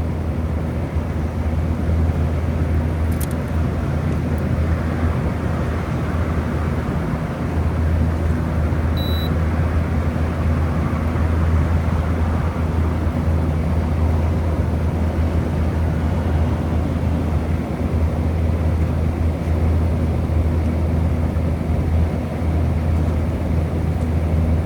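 2012 Frigidaire 18,500 BTU window air conditioner running with a steady low hum.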